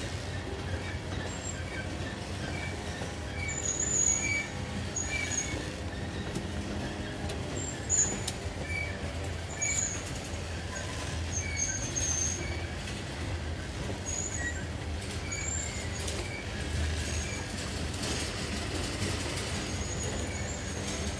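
Freight train of covered hopper cars rolling past at close range, a steady low rumble of wheels on rail. Short high-pitched squeaks come and go every second or two.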